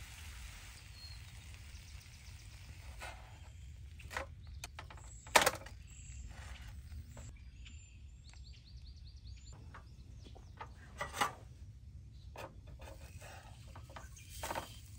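Grilled cheese sandwich sizzling faintly in a frying pan, the sizzle fading within the first couple of seconds. Then come scattered sharp knocks and thunks, the loudest about five seconds in, with a brief run of high, evenly spaced chirps near the middle.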